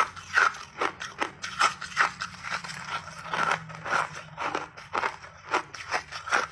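Close-miked crunching of chunks of refrozen mixed-berry ice between the teeth: sharp, brittle crunches in a steady chewing rhythm of about two to three a second.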